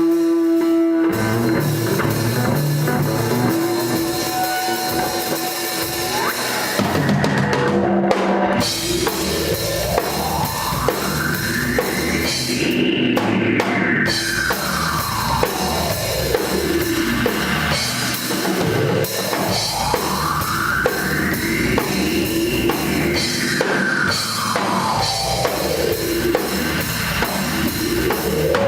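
Rock band playing live without vocals, the drum kit prominent. About eight seconds in, a tone starts sweeping slowly up and down over the band, rising and falling twice and starting up a third time near the end.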